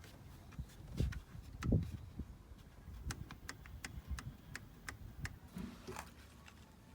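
Hands working on a car's plastic interior trim around the steering column: two dull thumps, then a run of light clicks and taps.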